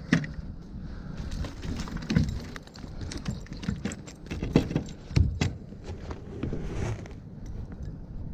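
Irregular knocks and clatter on wooden dock boards as a landing net holding a freshly caught coho salmon is handled and shifted about. Wind rumbles on the microphone underneath.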